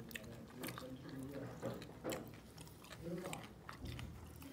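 Quiet eating sounds: soft chewing with scattered small clicks and smacks, over faint low voices in a small room.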